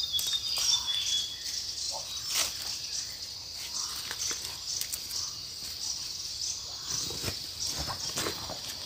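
Leafy greens being snapped off and pulled by hand, with scattered rustling and crackling of dry leaves and debris underfoot. A steady, high insect chorus runs underneath.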